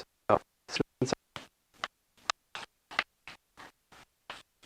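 Choppy, broken-up recording of a voice: short fragments about three or four times a second with dead gaps between them, so the words cannot be made out. This is a badly dropping-out audio feed.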